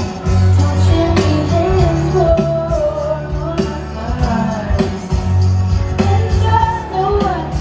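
Live pop band playing with a woman singing the melody over guitars, keyboards, bass and drums with a steady beat, heard from among the stadium crowd through a phone's microphone.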